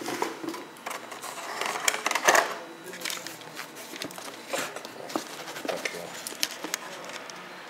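Hands handling a clear plastic case and cardboard packaging: scattered light clicks and rustles, with the loudest cluster about two seconds in.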